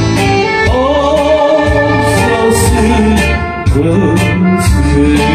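Korean trot song: a held vocal melody slides upward about a second in over a steady drum beat with bass and guitar backing.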